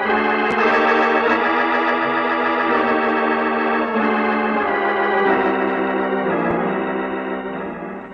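Organ music bridge: held chords that change every second or so, swelling up at the start and fading out near the end.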